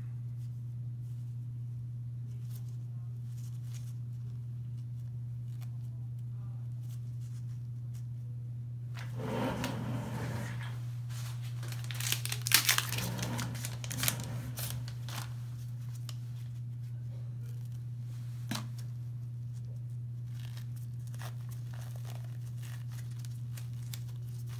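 Crackly tearing and crinkling of medical wrapping, loudest from about nine to fifteen seconds in, with a few sharp clicks, over a steady low hum.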